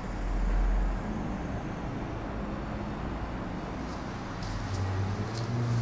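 Steady road-vehicle noise with a low rumble at the start, and a low, even engine-like hum growing from about four seconds in.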